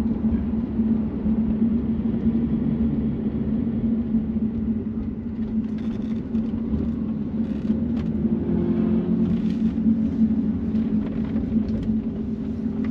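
BMW F80 M3's twin-turbo straight-six running at low revs with a steady drone as the car rolls slowly at about 20–50 km/h, heard from inside the cabin along with tyre and road rumble.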